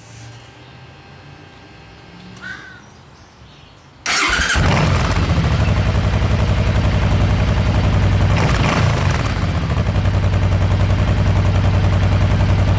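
Motorcycle engine starting about four seconds in and settling into a loud, steady idle with a rapid pulsing beat. Before it, a bird calls once.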